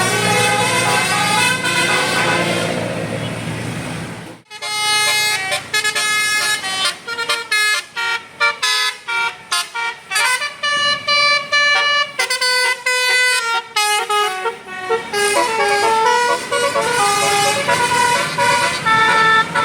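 Bus 'telolet Basuri' melody horn playing a fast tune of stepping, reedy notes. For about the first four seconds an engine hum runs underneath; then the sound cuts off abruptly and the horn tune goes on in short, separate notes.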